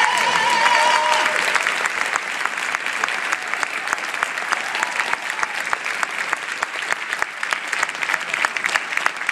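Audience applauding, many hands clapping together in an even patter. A held sung note, the end of a song, fades out about a second in as the clapping takes over.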